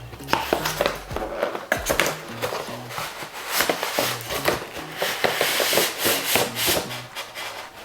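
Plastic toy parts and packaging being handled, with repeated rubbing and small clicks, over background music with a repeating bass line.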